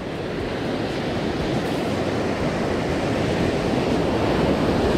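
Ocean surf washing in, a steady rush of breaking water that slowly grows louder.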